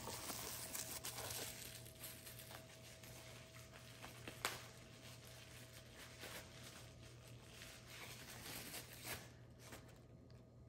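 Faint rustling and crinkling of packaging as soap tubs and splash bottles are handled and unpacked, with a single sharp click about four and a half seconds in. A low steady hum runs underneath.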